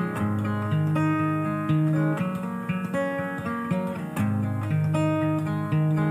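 Instrumental background music with guitar, playing a steady run of chords.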